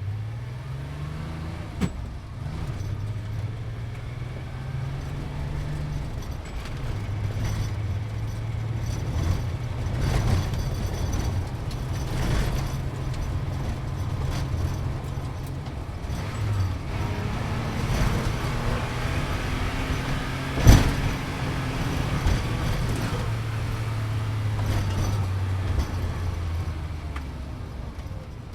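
Sports car engine and road noise heard from inside the cabin while driving, the engine pitch rising over the first couple of seconds and then stepping up and down as the car speeds along. A single sharp knock about 21 seconds in is the loudest moment.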